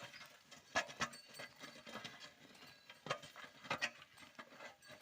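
Bulls drawing a plough through a field: irregular knocks and scuffs of hooves and plough, loudest about a second in and again near four seconds.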